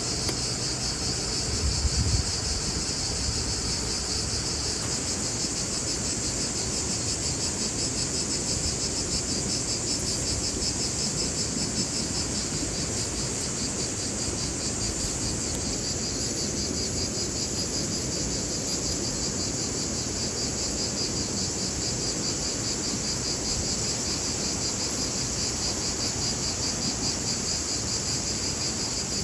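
Crickets chirping steadily in a high, fast-pulsing trill, over a low background rumble; a brief low thud about two seconds in.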